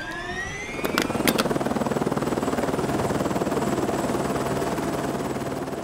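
DJI Air 2S quadcopter's propellers spinning up, their whine rising in pitch, then settling into a steady buzz as it lifts off and climbs. Two sharp clicks about a second in.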